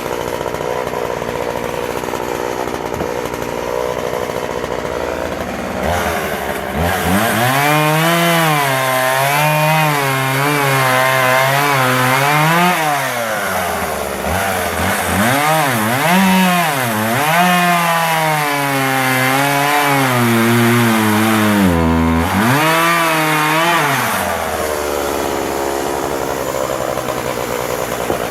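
Husqvarna 141 40cc two-stroke chainsaw idling, then opened up to full throttle about six seconds in and cutting wood for roughly eighteen seconds, its engine pitch wavering up and down under load with two short drops, before falling back to idle near the end. The owner judges it slightly lean at the top end in the cut and the chain in need of a sharpen.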